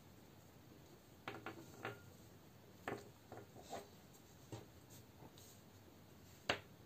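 Faint rubbing and scattered light clicks of yarn and a knitting needle being handled while stitches are cast on, with one sharper tap near the end.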